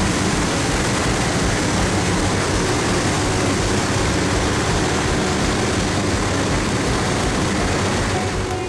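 Steady, loud industrial roar with a faint low hum underneath.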